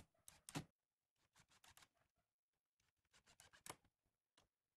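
Faint, scattered clicks and light taps from handling a cordless driver and screws on a steel hinge set in a wooden chest, in small clusters with short gaps; no drill motor is heard.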